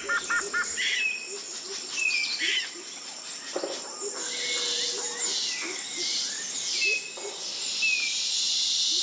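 Tropical rainforest ambience: several birds calling with short whistled notes, low calls repeating throughout, and a steady high insect trill. About halfway in, a loud insect buzz swells up and runs on in waves.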